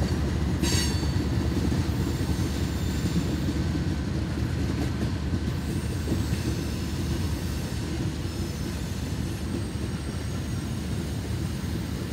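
Freight train rolling past: a steady low rumble from the diesel locomotives and then the tank cars on the rails, easing a little toward the end. A brief high wheel squeal comes about a second in.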